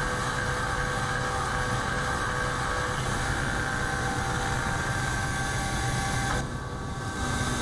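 Solid carbide end mill milling 4140 steel on a CNC machining center: a steady cutting whine with a few held tones over a low rumble. It goes briefly quieter about six and a half seconds in, then resumes.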